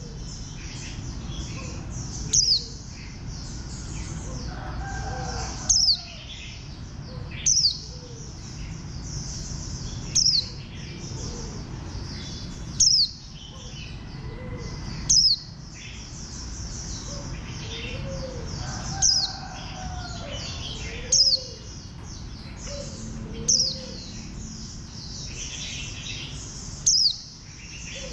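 White-eye (vành khuyên) singing: a continuous high, thin twittering song, punctuated every two to three seconds by a loud, sharp, downward-sweeping note.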